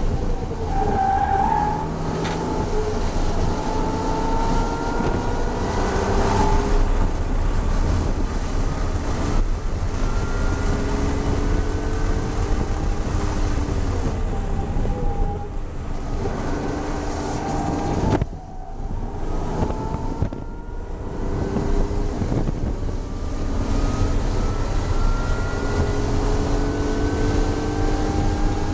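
BMW E36 M3's straight-six engine heard from inside the cabin, accelerating hard through the gears: its pitch climbs, drops back at each shift, then climbs again. The engine eases off briefly about two-thirds of the way in before pulling hard again.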